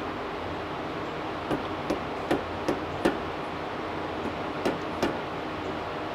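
Sharp metal-on-metal taps from a wrench at a brake caliper's bleeder screw during a pressure brake bleed: five in about a second and a half, then two more, over a steady hiss.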